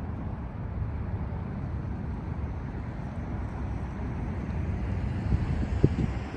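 Steady low rumble of city traffic, with a brief knock near the end.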